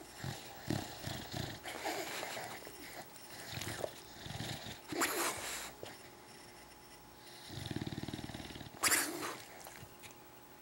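English bulldog snuffling and snoring in its sleep: a string of short snorts at first, a rattling snore about three-quarters of the way through, then a sharp snort just after it.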